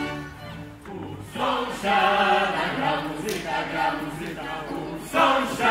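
Folk-ensemble band music stops about a second in, and a group of singers comes in with a Kraków-region folk song, singing in phrases with no instruments under them.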